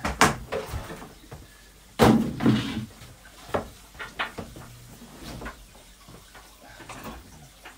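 Knocks and clatters of parts being handled at the open top of a large aquarium during a pump fitting. The loudest is a heavy clunk about two seconds in, followed by a few lighter clicks and taps.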